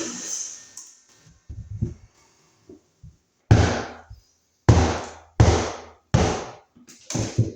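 A series of knocks: a few soft ones, then five loud, sharp thuds at roughly one-second intervals, each dying away quickly.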